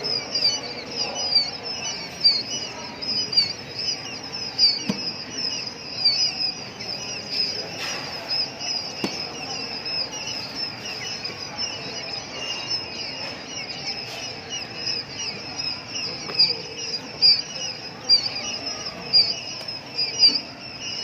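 Birds chirping: a steady, dense run of short, high, repeated chirps.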